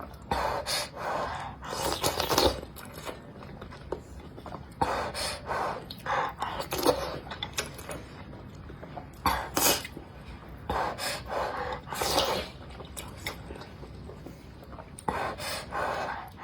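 Close-up mouth sounds of a person eating, in short noisy bursts every few seconds.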